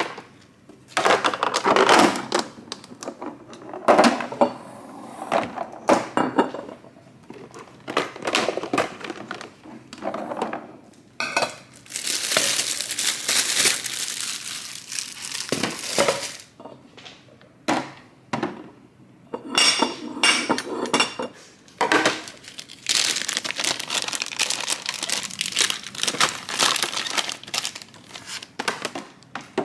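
Kitchen items being handled and sorted: packaging crinkling and containers, jars and dishes clinking and knocking together in irregular clusters, with a longer stretch of crinkling about halfway through.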